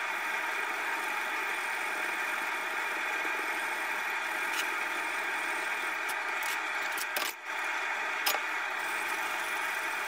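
Steady running noise of a machine, with a few light clicks.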